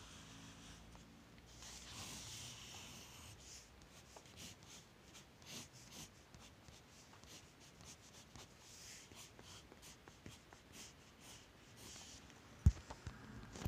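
Graphite pencil scratching across sketchbook paper in many short strokes. A single sharp knock near the end is the loudest sound.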